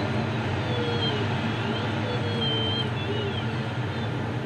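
Steady rush of air over the canopy inside a Grob 102 glider's cockpit, with the audio variometer's tone sliding up and down in pitch as the glider circles in a weak thermal.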